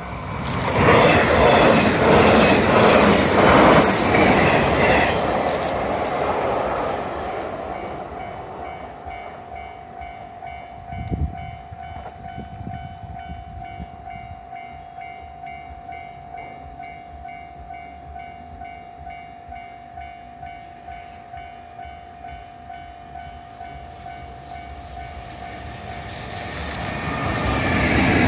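A train clatters past over a level crossing, its wheels beating a rapid rhythm on the rail joints, then fades away. The crossing's warning bell keeps ringing with a steady repeating tone, and a short low thud comes about eleven seconds in. Near the end a second train approaches and grows louder; the two trains are a 381-series limited express and an EF210 electric locomotive's freight train.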